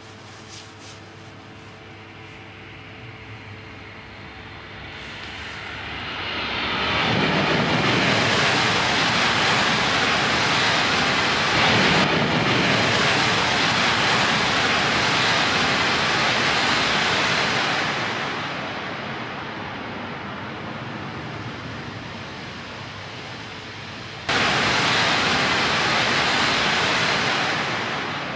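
Coupled Hayabusa and Komachi Shinkansen set (E5 and E6 series) passing through a station at full speed without stopping. A rush of train and wind noise swells from about four seconds in, stays loud for about ten seconds and then fades. Near the end a second loud rush starts abruptly.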